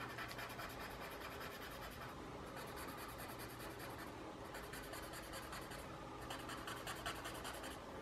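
Paper blending stump rubbing graphite shading on paper: faint, soft scratchy strokes in quick back-and-forth runs.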